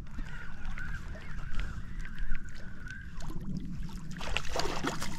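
Spinning reel being cranked to bring in a hooked fish, giving a wavering whir with small clicks. Water splashes near the end as the fish is drawn up to the bank.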